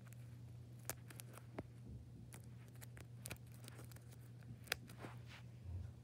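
Faint, scattered clicks and taps from fingers handling a homemade disc-shaped fidget toy, about six in all, over a steady low hum.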